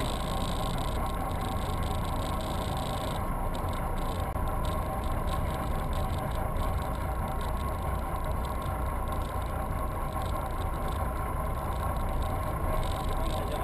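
Steady low rumble of a Carver 356 motor yacht's engines running at slow speed, heard through a GoPro fixed on the bow.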